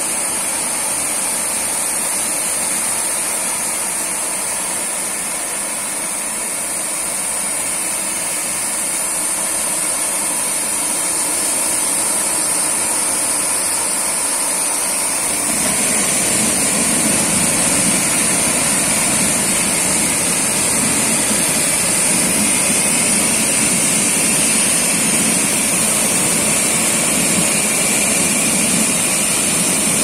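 Ergin ER 4200 automatic carpet washing machine running, its rotating disc brushes scrubbing carpet on the conveyor: a steady mechanical running noise with a constant high hiss. About halfway through it grows louder and fuller in the low end.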